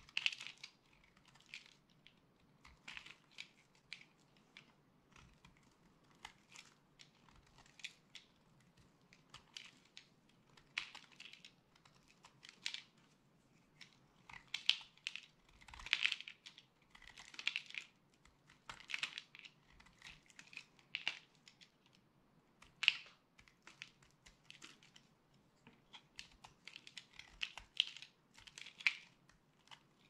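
Dry, brittle soap being picked and scraped apart with a small knife blade, crackling and crunching in irregular clusters of crisp clicks.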